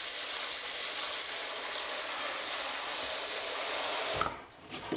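Kitchen tap's pull-out spray head running water onto boiled pig brain in a stainless steel colander in the sink, a steady rush that stops abruptly about four seconds in as the tap is turned off, followed by a few small knocks.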